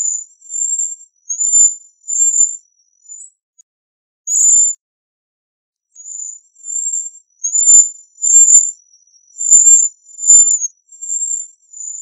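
Cedar waxwing giving a string of very high, thin calls, each under half a second long, with a pause of a second or so midway before the calls resume more steadily.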